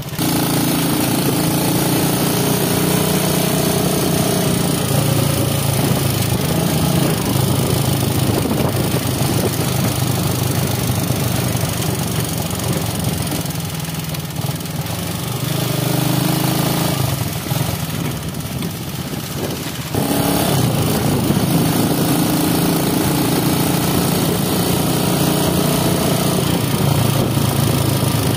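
Small motorcycle engine running under way, its note rising and falling with the throttle; it eases off twice in the middle and picks up sharply again about two-thirds of the way through.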